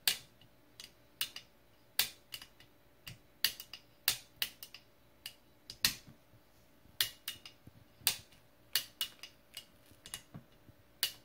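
AR-15 hammer and trigger being worked by hand: a series of sharp metallic clicks, often in quick pairs, a click or two about every second, as the hammer is cocked and released against the trigger. The action is working newly applied trigger grease into the hammer and trigger engagement surfaces.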